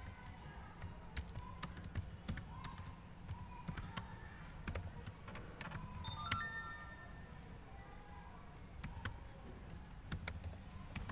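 Typing on a computer keyboard: irregular, separate keystrokes entering a terminal command. A brief tone rings about six seconds in.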